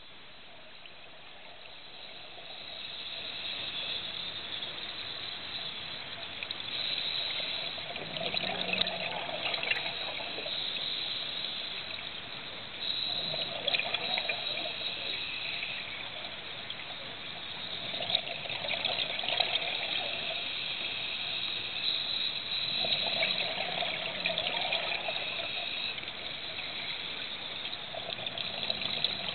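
Scuba diver breathing underwater through a regulator: bursts of exhaled bubbles gurgling about every five seconds over a constant hiss.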